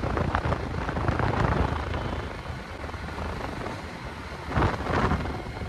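Motorcycle riding along a highway: steady low engine rumble with wind and road noise, and a brief louder rush near the end.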